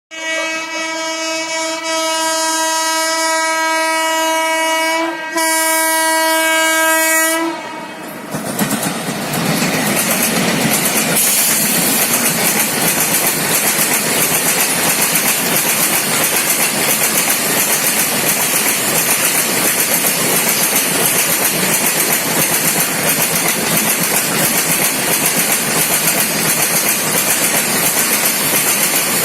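A locomotive horn sounds two long blasts, the second starting about five seconds in. Then a loaded freight train of coal-filled BOXN wagons passes close by on the next track with a loud, fast, continuous clatter of wheels over the rail joints, a terrible track sound.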